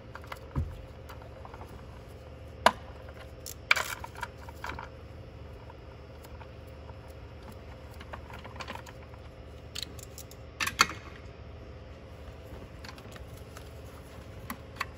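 Scattered sharp clicks and light knocks of plastic connectors, clips and hand tools being worked in an engine bay, a few seconds apart, over a low steady hum.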